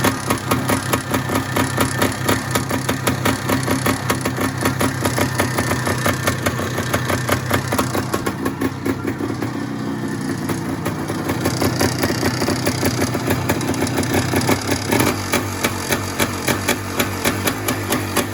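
Yamaha DT MX 400's single-cylinder two-stroke engine idling with an even, pulsing beat and a light clatter typical of its worn top end.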